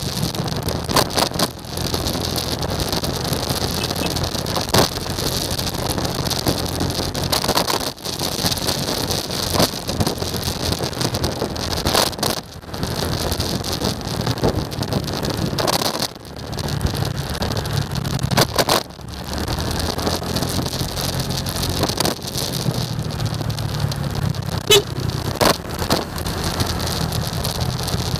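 Motorcycle engine running while riding in traffic, with steady wind noise over the microphone. The level dips briefly a few times, and there are scattered short knocks.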